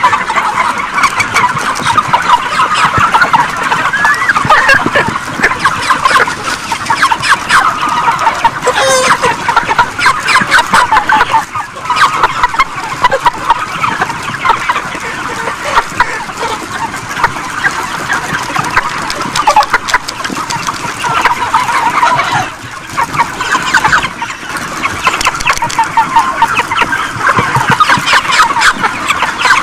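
Large flock of broiler chickens packed into a shed: a dense, continuous chorus of many overlapping clucks and short calls.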